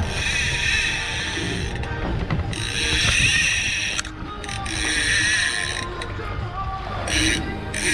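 Fishing reel whirring and clicking in repeated bursts, each a second or two long, as a hooked Atlantic bonito is fought on the rod.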